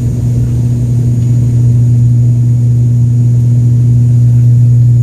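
Airliner engines during take-off, heard from inside the passenger cabin: a loud, steady low drone that grows slightly louder.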